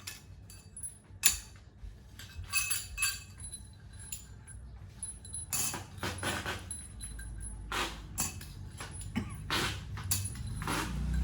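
Metal parts clinking and rattling: a series of sharp clinks, some with a brief high ring, with a low hum coming in during the second half.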